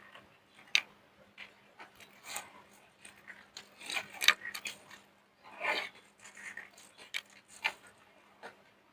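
Soap being crushed: irregular crisp cracks and crunches, with a longer crumbling stretch a little past the middle.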